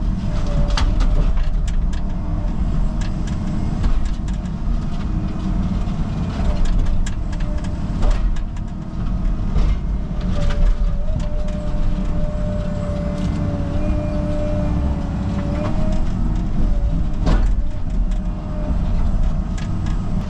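Caterpillar 306 mini excavator's diesel engine running under working load, with repeated cracks, knocks and crunches of mobile-home debris being grabbed and crushed. A steady hydraulic-type whine rises over the engine for several seconds midway.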